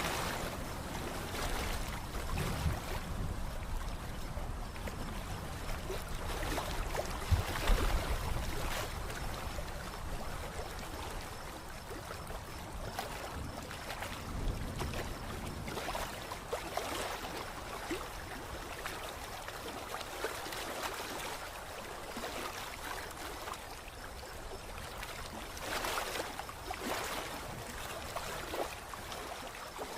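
Gusty wind ahead of a storm, buffeting the microphone in waves that rise and fall, with short low rumbles from the gusts.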